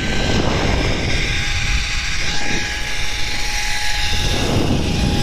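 Zipline trolley running fast along its steel cable: a loud rush of wind on the helmet-mounted microphone, with a steady high whine from the pulley wheels.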